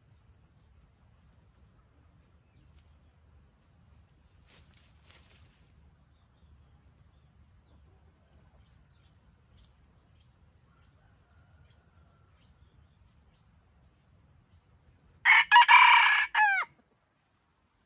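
Red junglefowl rooster crowing once near the end, a single crow of about a second and a half that falls in pitch as it ends. Before it there are only faint rustles.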